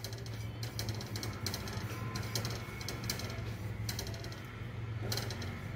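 A plastic spatula stirring dry oats and flour in a steel pan: a series of short, irregular scrapes and rattles over a steady low hum.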